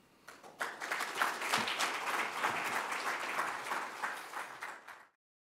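Audience applauding, building within the first second and then cut off abruptly near the end.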